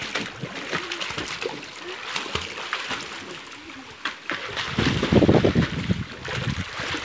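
Water splashing as children swim, kick and dive in a small pool, loudest for about a second some five seconds in.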